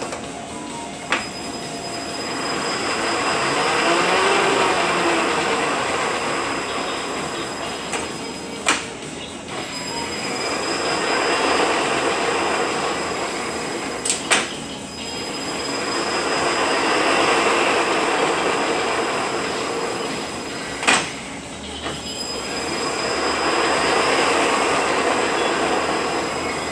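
Rebuilt Eaton Fuller RTLO-18918B 18-speed truck transmission running on a test dyno. Its gear noise rises and falls in repeated swells about every six to seven seconds, with a sharp click between swells.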